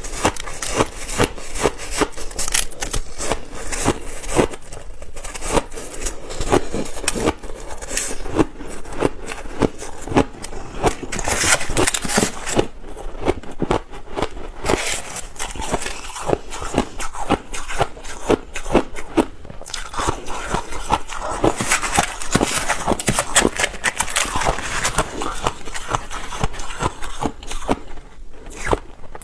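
Ice being bitten and chewed close to the microphone: a dense, continuous crunching and crackling made of many quick small cracks.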